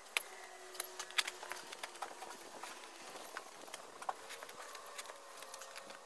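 Digging with a spade: irregular sharp knocks and scrapes of the blade in soil, mixed with footsteps in jandals.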